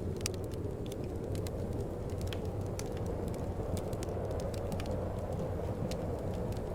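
Wood fire crackling, with frequent sharp pops, over a steady low rush of wind.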